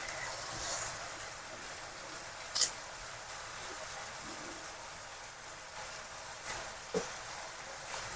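Small kitchen handling sounds as chicken stock cubes are unwrapped and mixed into a glass bowl of hot water: one short sharp rustle about two and a half seconds in, then a couple of light knocks near the end, over a steady faint hiss.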